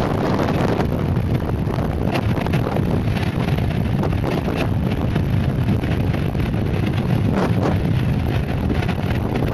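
Steady wind noise on the microphone from a mountainboard running fast downhill, over the rumble of its air-filled tyres rolling on asphalt.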